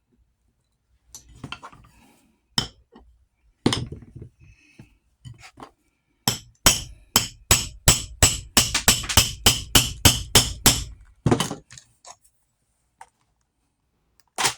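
Hammer blows at a workbench: a few scattered knocks, then a fast, even run of about fifteen strikes at three or four a second, and one last sharp knock at the end.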